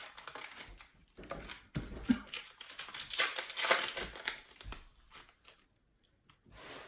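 Panini Prizm trading-card pack wrapper crinkling as it is torn open, loudest three to four seconds in, then thinning to a few light rustles.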